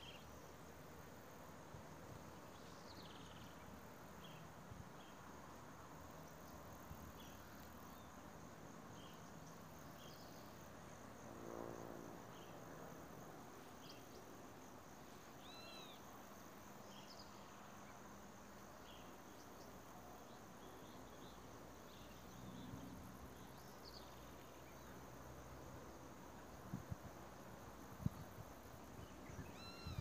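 Faint countryside ambience: short high bird chirps every second or two over a faint steady insect hum. A brief low pitched sound comes about twelve seconds in, and a few sharp knocks near the end.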